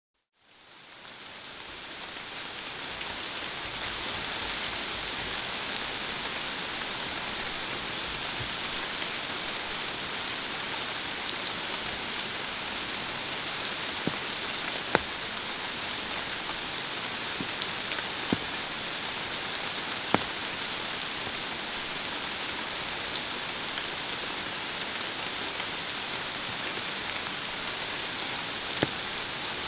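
Steady rain falling, fading in over the first few seconds, with a few louder single drops landing close by.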